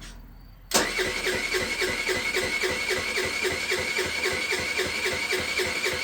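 A 50cc Wildfire scooter's electric starter cranking the engine. It cuts in suddenly under a second in, then whirs with an even dip in pitch about three to four times a second as the piston comes up on compression, and the engine does not catch.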